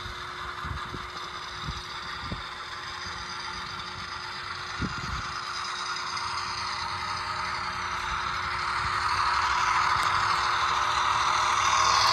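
Motor and helical gears of an HO scale Walthers Mainline EMD NW2 model locomotive whirring as it runs along the track, growing louder as it draws close. A few faint clicks come in the first five seconds.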